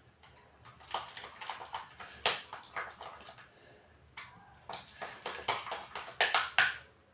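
Thick, sticky homemade slime of glue, shaving foam and boric activator squelching and popping as it is stirred and kneaded in a pot. The sounds come as a fast, irregular run of wet squelches, starting about a second in.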